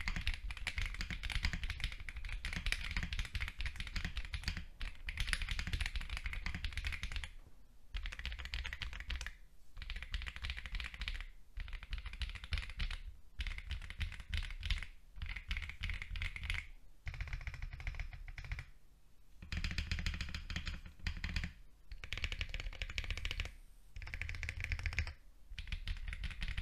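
Typing sound test on a mechanical keyboard fitted with Akko Cream switches: fast, continuous keystrokes clacking in runs, with brief pauses between runs.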